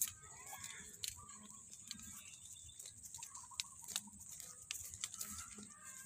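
Soft footsteps through grass with scattered light clicks, faint animal calls, and a steady high hiss.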